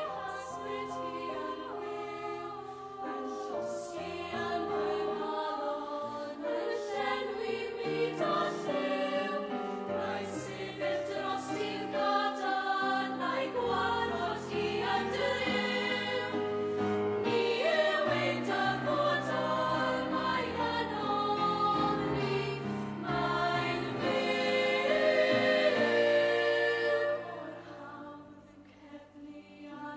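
Girls' choir singing in soprano and alto parts. Near the end the singing drops away to a brief pause before coming back softly.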